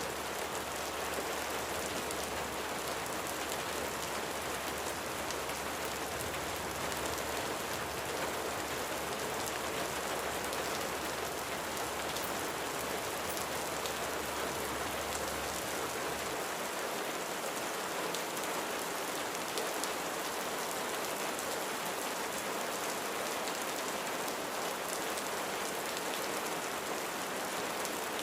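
Steady rain falling, an even hiss with faint scattered drop ticks. A low hum underneath cuts out a little past halfway.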